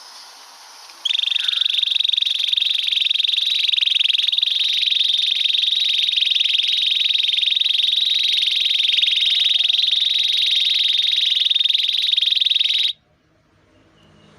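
Male canary singing one long, continuous rolling trill: a rapid, high buzzing warble that starts about a second in and cuts off suddenly near the end.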